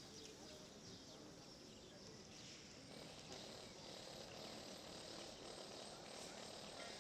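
Faint outdoor street ambience: a low, steady background hum that grows a little louder about three seconds in, with a few faint, distant bird chirps.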